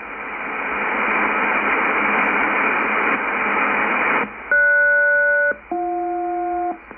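Yaesu FTdx10 shortwave receiver on upper sideband giving a steady hiss of band static for about four seconds. Then an HF aeronautical SELCAL call comes in: two pairs of steady tones, each about a second long with a short gap between. These are the selective-calling tones sent to alert an aircraft crew for a SELCAL check.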